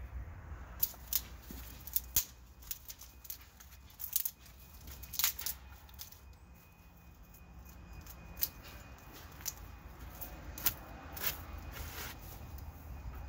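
Dry grass and dead stems rustling, crackling and snapping as they are pulled up and torn out of a raised bed by gloved hands, in irregular quick snaps.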